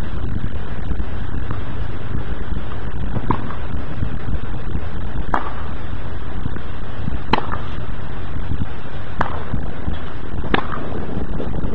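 Tennis balls struck by rackets in a rally, a sharp pop about every two seconds, over a steady low rumble of wind on the microphone.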